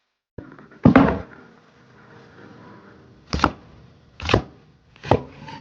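Chopping: a heavy thud about a second in, then three sharp chops about a second apart.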